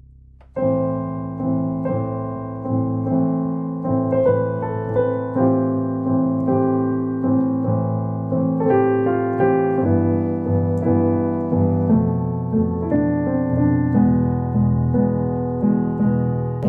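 Roland digital piano played with both hands, a melody over held chords, starting about half a second in.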